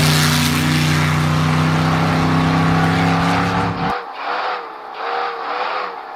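Ultra4 race car's engine running loud and steady at high revs, with a hiss of dirt as it slides through a turn. About four seconds in, the sound cuts to the engine heard from inside the cab: quieter, its pitch rising and falling with the throttle.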